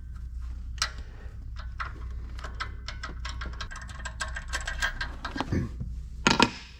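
Ratchet wrench clicking in short irregular runs as a spark plug is unscrewed from the engine, over a low steady hum, with a louder clatter near the end as the plug comes out.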